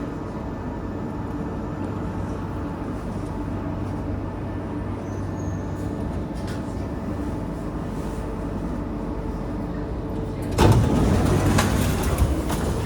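The inside of a C751A metro train standing at a platform, with a steady electrical hum made of several low tones. About ten and a half seconds in comes a sudden, louder rush of noise with knocks.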